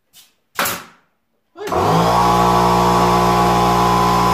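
A pneumatic nail gun fires once with a sharp blast of air under a second in. About a second and a half in, the air compressor's motor starts and runs steadily, switching on by itself as the spent air lets the tank pressure drop.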